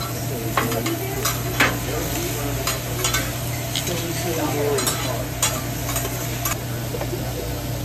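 Vegetables sizzling on a hibachi steel flat-top griddle as a metal spatula and fork stir and toss them, the utensils clicking and scraping against the griddle in a run of sharp taps.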